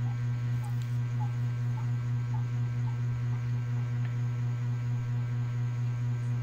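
Steady, loud, low electrical hum with a stack of even overtones, unchanging throughout. Faint short chirps repeat about twice a second over the first half, stopping about halfway through.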